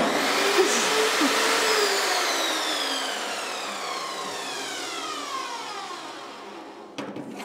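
Small table saw spinning down: its motor and blade whine falls steadily in pitch and fades over about six seconds after a loud start. A couple of sharp knocks follow near the end.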